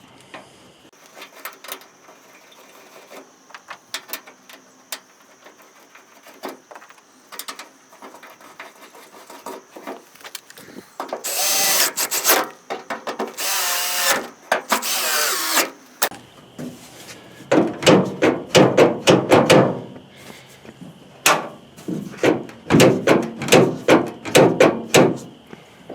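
Power drill/driver run in two short bursts a couple of seconds apart, driving screws back into the tailgate latch assembly. It is followed by a long run of quick clicks and rattles.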